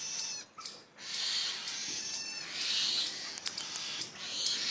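A small bird giving repeated high-pitched, harsh distress calls, short sharp chirps mixed with longer screeches, as it is seized by a frog.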